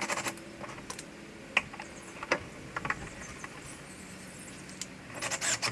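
Scattered light clicks and clinks of tools and parts being handled by hand in a car's engine bay, with a quick flurry of clicks near the end.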